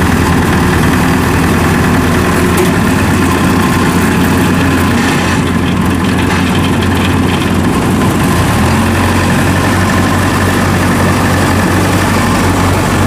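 Engines of tracked rice harvesters running steadily as the machines crawl through the paddy; the engine note shifts slightly about nine seconds in.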